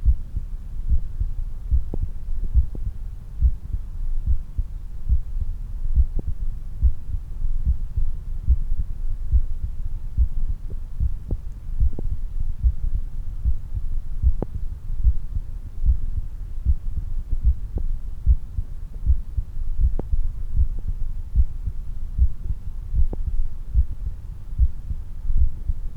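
Human heartbeat after exercise, heard at the chest: a steady run of low thumps over a constant low rumble, with a few faint clicks.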